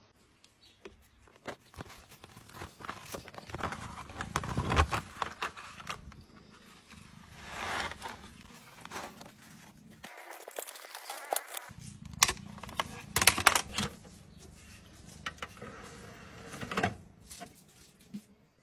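Handling of a molded plastic DVD case and its paper inserts: scattered clicks, taps and rustling, with a few sharper clacks.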